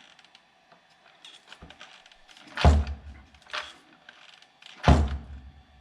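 Dull thunks and light rattling from a Traxxas Maxx RC truck being pushed down on its suspension and let go. The front shocks are filled with stiff 80wt oil. There are two loud thunks about two seconds apart, with smaller knocks between them.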